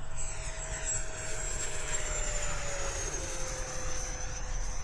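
The 90mm electric ducted fan of a 3D printed RC sport jet at full throttle in flight: a steady rushing whine whose pitch slides gradually down.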